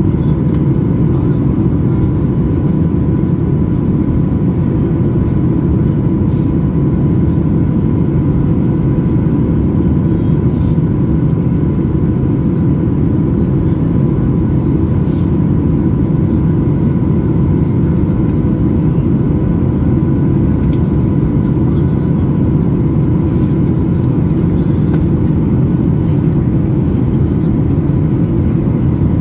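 Steady cabin noise inside a Boeing 737 MAX 8 airliner in flight: the low drone of its CFM LEAP-1B engines and the rush of air past the fuselage, with a thin steady whine above it.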